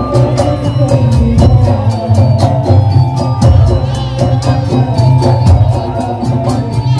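Madurese musik daul percussion ensemble playing loudly: heavy drums and a fast, steady beat of sharp percussion strikes, with a melody running over them.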